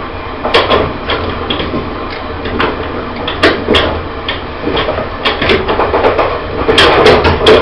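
Running sound of a Taiwan Railways E1000 push-pull electric train heard from inside a carriage: a steady low rumble with irregular sharp clacks and knocks from wheels and bodywork, coming thicker and faster near the end.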